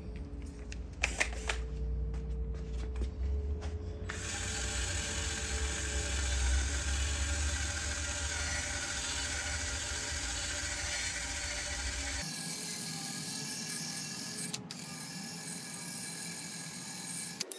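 Cordless angle grinder with a brass wire wheel running as it brushes old surround glue off a subwoofer's metal frame, to leave bare metal for the new foam surround to bond to. The first few seconds hold only clicks and handling noise, and the grinder's steady whine starts about four seconds in.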